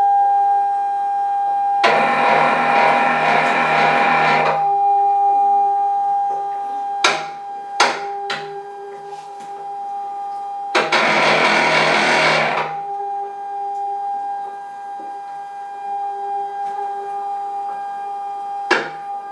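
Motor drive of a homemade panel saw whining steadily as it hauls the circular-saw carriage up the rails. Two stretches of loud rushing noise of about two and a half seconds each come over it, and there are a few sharp clicks.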